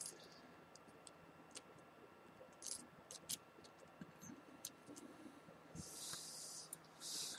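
Near silence with faint, scattered small clicks and ticks of small phone parts being handled and fitted into the Samsung Galaxy S4's frame, and two short soft hisses near the end.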